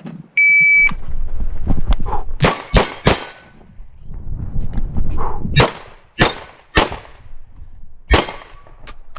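Shot-timer start beep, then a series of shotgun shots in short quick strings: three close together, three more about half a second apart, and a single shot near the end.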